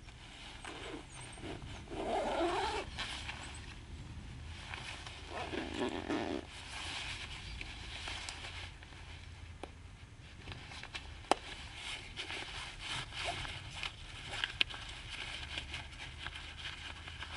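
Clothing rustling and a zipper being done up as a jacket and vest are fastened, with a few sharp single clicks of a fastener in the second half. Two brief louder sounds of unclear source stand out about two and six seconds in.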